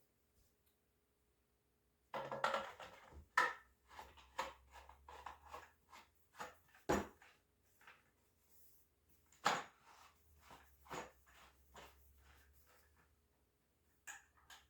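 Parts of a slide didgeridoo being handled and fitted together, brass and steel slip-joint tubes and their fittings: an irregular run of light clicks and knocks, the sharpest about three and a half, seven and nine and a half seconds in.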